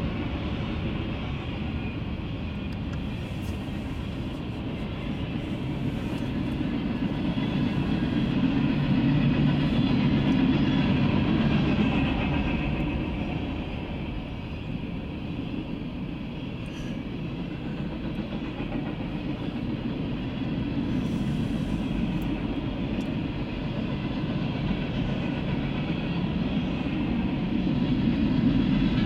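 Freight cars of a passing CSX freight train rolling by: a steady rumble of steel wheels on rail that swells and eases in level as the cars pass.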